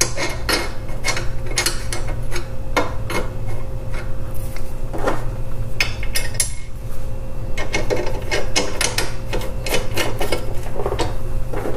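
Phillips screwdriver driving a small screw into a metal slider on a TV wall-mount rail: irregular light metallic clicks and scrapes, over a steady low hum.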